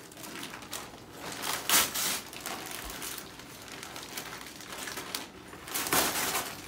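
Gift wrapping paper being torn and crumpled by two people unwrapping presents: continuous rustling and crinkling, with two louder tearing rips, about two seconds in and near the end.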